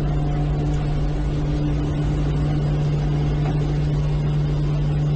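Steady drone of an E-2C Hawkeye's twin turboprop engines and propellers heard from inside the cockpit, holding an even pitch and level as the aircraft climbs out just after a catapult launch.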